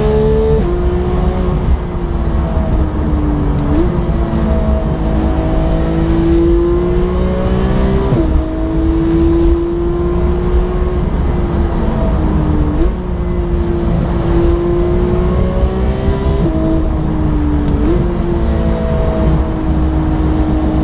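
Porsche 991 GT3 flat-six with an upgraded exhaust, driven hard through the gears. The engine note climbs under acceleration and drops sharply on upshifts three times. Between them it falls off on the overrun and jumps back up on downshifts, heard from inside the cabin.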